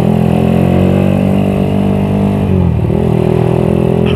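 Single-cylinder four-stroke engine of a Suzuki Satria FU motorcycle, bored up to 200cc, running steadily under way. About two and a half seconds in, the engine note dips briefly, then picks up again.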